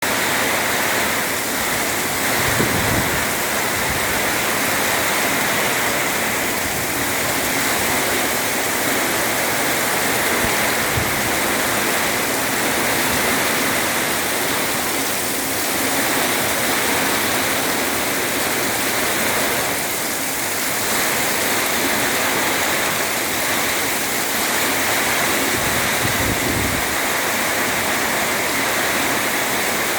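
Heavy rain pouring down steadily in an out-of-season rainstorm, with a few brief low rumbles, probably gusts.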